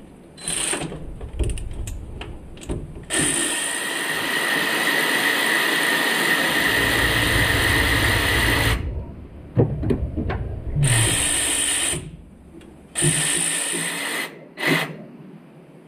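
Cordless power tool spinning a socket on an extension: one run of about six seconds, then two shorter runs of about a second each, with a few metal clinks in between.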